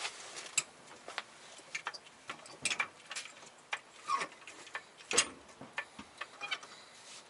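Hydraulic floor jack being pumped up under a VW Mk2 rear beam: a run of irregular mechanical clicks and ticks from the handle strokes, a few louder ones with a short falling squeak as the load comes on.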